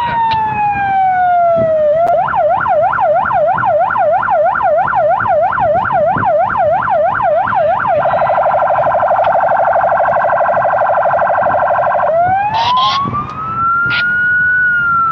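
Police patrol car's electronic siren cycling through its tones: a falling wail, then from about two seconds in a fast yelp of about four rises a second, then midway a much faster warble, and then a slow rising wail that peaks and starts to fall near the end.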